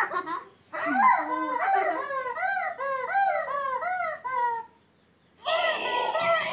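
Rubber chicken squeeze toy squawking over and over, a quick run of rising-and-falling squawks about three a second for some four seconds, then stopping.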